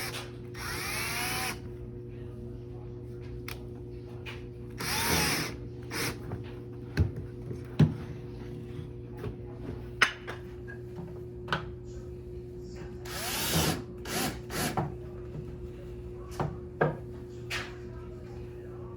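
Power drill run in three short bursts, its pitch rising and falling as the trigger is squeezed and released, while a metal bracket is fastened on. Knocks and clicks of the work being handled come between the bursts.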